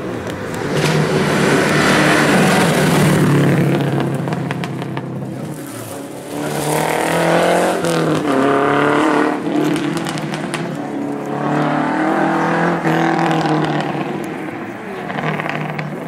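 Rally cars driven flat out past on a tarmac stage, engines revving hard, the pitch climbing and dropping as they shift gears. The loudest pass is about two to four seconds in, with two more later on.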